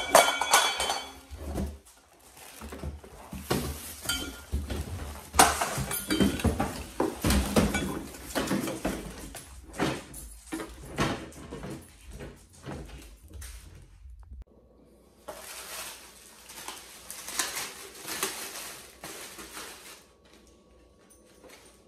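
Unpacking noise: cardboard and plastic wrapping rustling, with irregular knocks and bumps as a plastic electric lawn mower is lifted out of its box. About fourteen seconds in it changes abruptly to quieter rustling of a paper and plastic bag.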